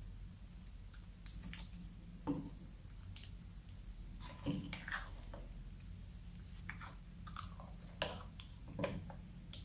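Clear slime squelching and clicking as a plastic ladle stirs and lifts it among water balls, in scattered short wet squishes and pops.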